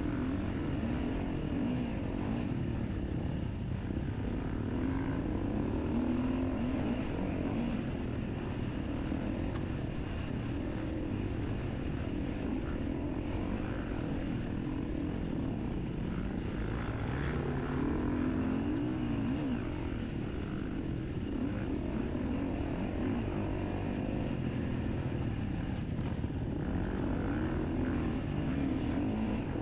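Off-road motorcycle engine running continuously, its pitch wavering up and down with the throttle.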